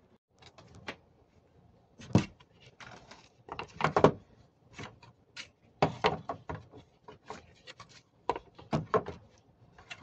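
Irregular plastic knocks and clicks as a blower wheel is handled and pushed onto the shaft of an air conditioner indoor unit's fan motor, with a few louder knocks among them.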